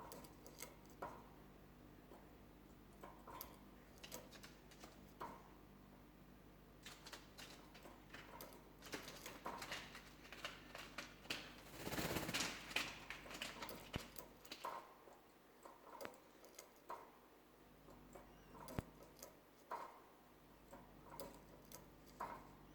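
Pet canary hopping about its cage: faint, scattered taps and clicks as it lands on perches and bars, with a louder spell of rustling about halfway through.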